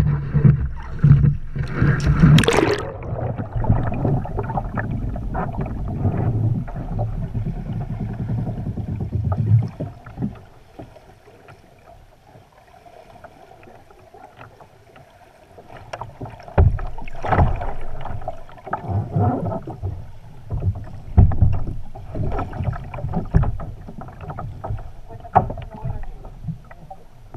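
Water sloshing against a kayak, picked up by a camera on its front deck, with a loud splash about two and a half seconds in. From about ten seconds the sound turns dull and quieter as the camera is underwater with the kayak capsized. From about sixteen seconds there are irregular underwater knocks and sloshes.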